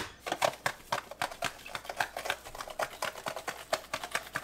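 Table salt shaken from its container over raw fish fillets in a stainless steel sink: a quick, uneven run of crisp little rattling ticks, several a second, after one sharp click at the start.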